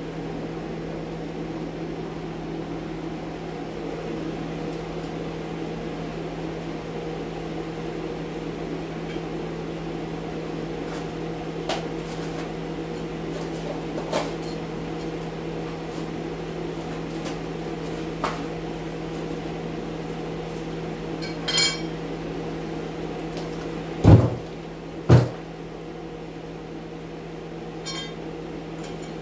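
Air scrubber running with a steady hum. Over it come scattered knocks and a short rattle from pulling strapping and sheeting off a cinderblock wall, then two loud thumps about a second apart near the end.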